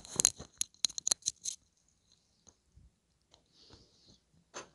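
A quick run of sharp clicks and crackles in the first second and a half, then faint rustling and a single sharp click near the end.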